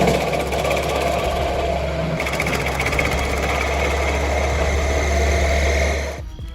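An engine-driven wood-processing machine running steadily, with a strong low hum, cutting off about six seconds in.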